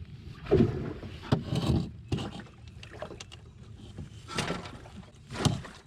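Irregular knocks and splashy bursts from a canoe on the water, over a low steady rumble; the louder ones come about half a second, a second and a half, four and a half and five and a half seconds in.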